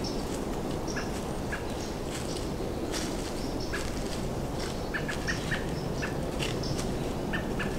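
Small birds chipping in the woods: short, sharp single chirps, several in quick succession a little past the middle and again near the end. Under them is a steady low background rush.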